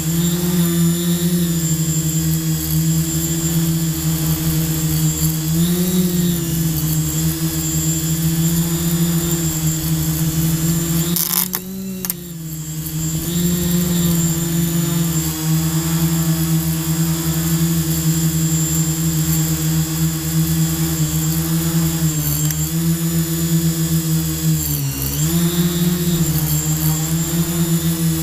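Quadcopter's electric motors and propellers running with a steady, high hum. The pitch dips briefly a few times, and about twelve seconds in there is a short break with a click.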